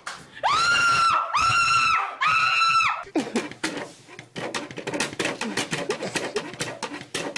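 Three long, loud, high-pitched cries in a row, each held at a steady pitch. Then a rapid clatter of clicks and knocks as a cat paws at and pushes through a plastic cat flap, with some lower cries mixed in.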